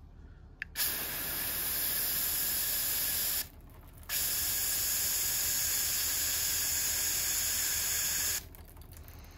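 Aerosol wasp and hornet spray jetting from the can in two long hissing bursts: a click, then about three seconds of spray, a brief pause, and a longer burst of about four seconds.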